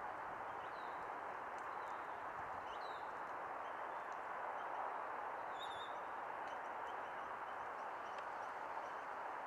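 Steady rushing background noise with a few faint, short, high bird chirps, one a little downward-gliding note, heard among pine grosbeaks feeding on berries.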